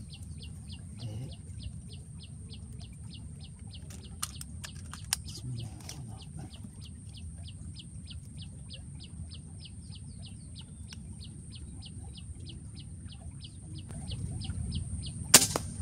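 A bird repeats a short, sharp chirp about three times a second over a steady high whine. Near the end, the FX Jaguar air rifle fires a 14-grain slug once, a single sharp shot that is the loudest sound.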